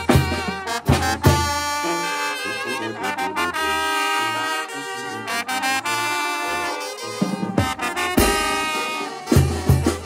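Oaxacan brass band (banda de viento) playing: trumpets, trombones and saxophones carry the tune in long held notes over a moving tuba bass line. The drums drop out for most of the passage, with strikes for about the first second and again a little past seven seconds, and the bass drum and cymbals come back in near the end.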